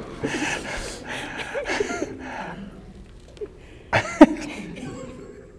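Soft laughter and low murmured voices, with a short, louder vocal sound, a laugh or cough, about four seconds in.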